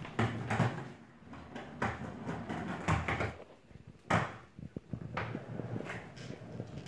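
Skateboard wheels rumbling as the board rolls over a hardwood floor, with about half a dozen sharp wooden knocks as the board clunks and is stepped on.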